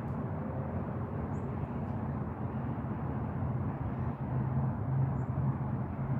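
Steady low rumbling noise, a little louder about five seconds in.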